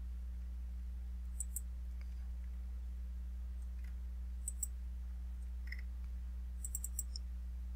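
Computer mouse button clicks: two quick clicks at a time, twice, then a short run of four or five near the end, over a steady low electrical hum.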